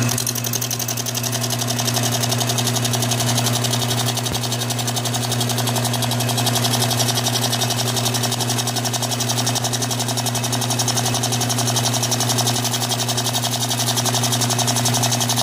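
Bridgeport milling machine running with a steady motor hum, its cutter taking a light cut across the deck of a chainsaw crankcase, with a fast, even ticking from the cutter on the metal.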